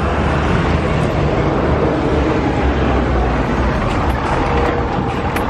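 Road traffic: a steady rumble and hiss of vehicles passing on a road.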